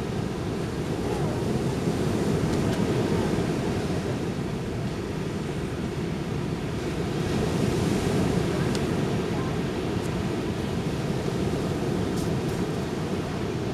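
Ocean surf washing onto a beach, a steady rushing noise that swells louder twice, with wind buffeting the microphone.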